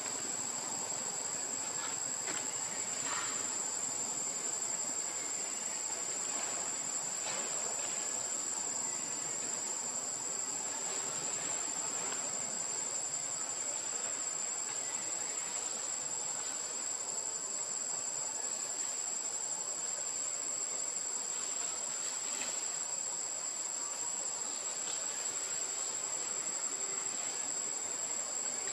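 Insects droning steadily in forest, one unbroken high-pitched whine with a few faint short sounds now and then.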